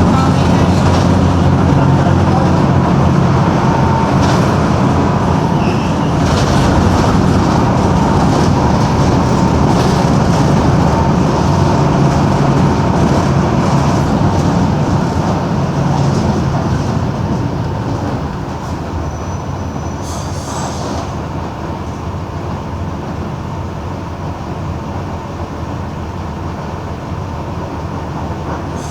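Mercedes-Benz OM-366LA straight-six turbodiesel of a Busscar Urbanus S city bus running under load with rattles, then easing off about two-thirds of the way through and going quieter.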